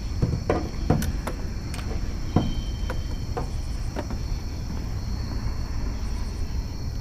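Several sharp knocks and clunks in the first four seconds from handling on a boat deck, over a steady low rumble and a constant high drone of night insects.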